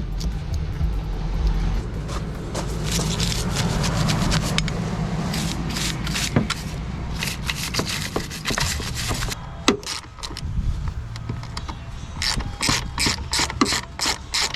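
Hand work on the truck's underside: scraping and rubbing of parts, then a run of quick ratcheting clicks, several a second, near the end.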